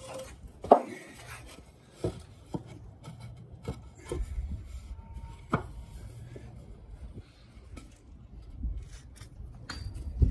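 2x4 lumber knocked and rubbed against a wooden frame as an upright is set into a corner: a handful of sharp wooden knocks, the loudest about a second in. Wind rumbles on the microphone at times.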